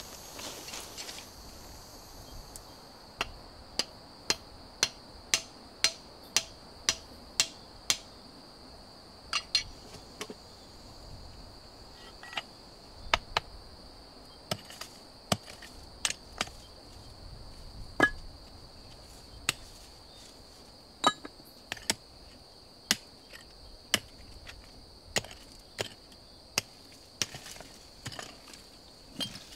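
A hand tool striking into rocky soil and loose stones, a series of sharp knocks, at first about two a second and then irregular, as the ground is broken up. A steady high buzz of insects runs underneath.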